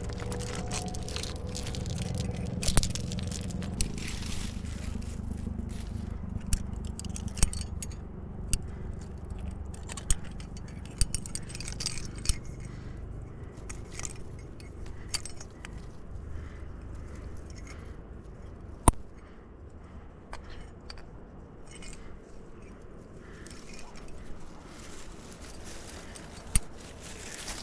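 Climbing rack of cams and carabiners clinking on the harness, with clothing and body scraping against granite as the climber moves up a crack. Sharp metal clicks come every few seconds over the rustle and scrape.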